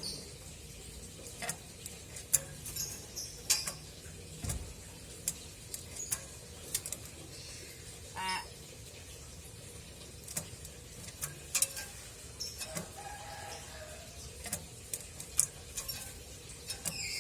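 Pet hill myna making a few short calls, about eight and thirteen seconds in, among many scattered sharp clicks.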